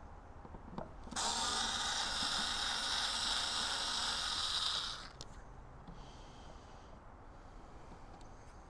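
Cordless drill-driver running steadily for about four seconds with a high motor whine, backing out a screw from an EV charger's housing; fainter, shorter whirs follow near the end.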